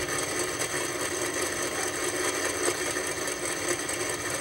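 Steady mechanical whirring of a rolling-digit counter, played through the small speaker of a CRT television that is running on about 300 volts AC.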